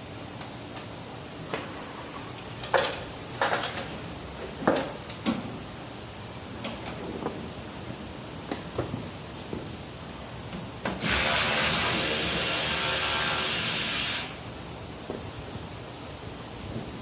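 Scattered clicks and knocks of work on the car, then a loud steady hiss lasting about three seconds that stops suddenly.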